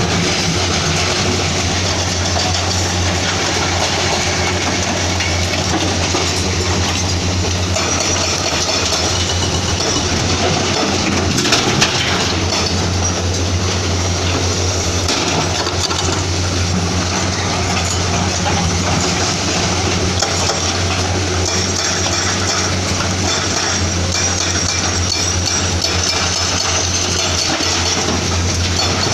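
Komatsu PC210-10MO excavator's diesel engine running steadily with a low hum, mixed with hydraulic and machine noise. There is a brief clatter about twelve seconds in.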